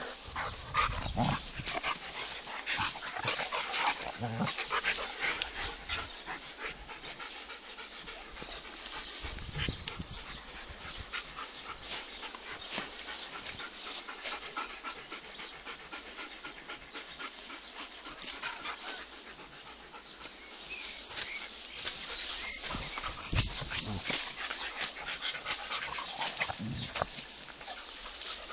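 Dog sounds, over irregular clicking and rustling noise, louder in a couple of stretches.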